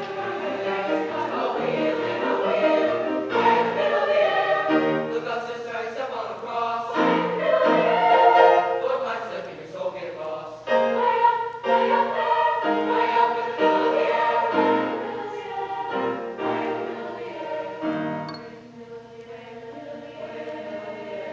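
Middle-school choir singing together in parts, with sustained notes that swell and then grow softer near the end.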